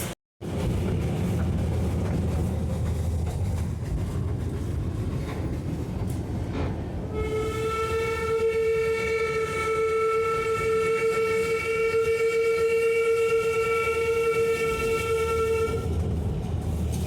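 Darjeeling Himalayan Railway toy train running with a steady low rumble from the carriage and wheels; about seven seconds in, the steam locomotive's whistle sounds one long steady blast lasting about nine seconds.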